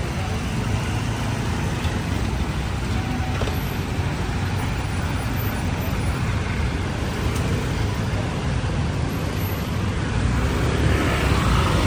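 Steady road traffic noise of cars and motorbikes passing, growing a little louder near the end.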